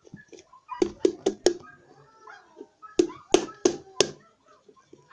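Sharp taps in two quick bursts of three or four, about a second in and again about three seconds in: a nearly empty bottle of white school glue being knocked to get the last of the glue out.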